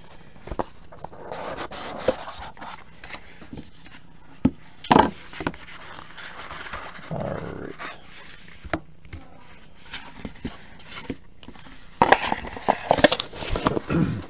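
A cardboard Leaf Metal Draft football card box being opened and handled: rustling and scraping of cardboard and wrapping, with scattered light taps and clicks as the contents are pulled out, and a louder cluster of knocks and rustling near the end.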